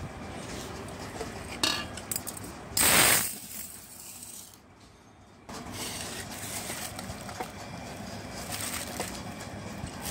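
Stainless steel cup and bowl of raw rice being handled: a few metal clicks and clinks, then a short loud rattling rush about three seconds in.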